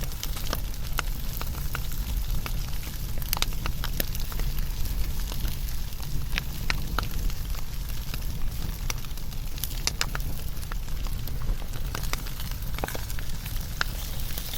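Wood fire burning with a steady low rumble and irregular sharp crackles and pops of burning logs.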